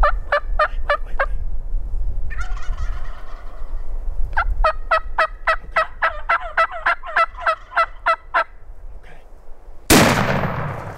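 Turkey calling in two quick runs of repeated notes, the longer lasting about four seconds. Near the end a single shotgun shot rings out and fades over about a second.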